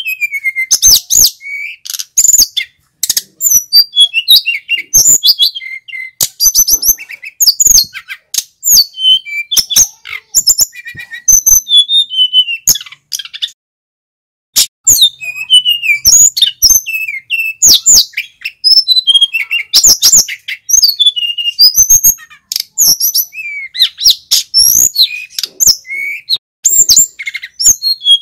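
Male sikatan gunung (mountain flycatcher) singing a loud, fast, varied song of high sweeping whistles, chirps and trills, with a pause of about a second midway.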